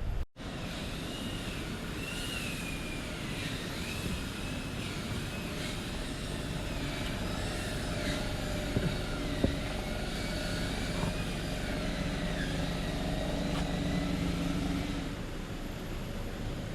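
Small quadcopter drone (DJI Neo) in flight, its propellers giving a steady whine whose pitch wavers up and down as the motors change speed.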